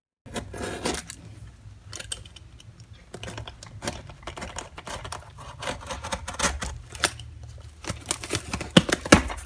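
Irregular sharp clicks and light knocks from objects being handled and set down, over a steady low hum.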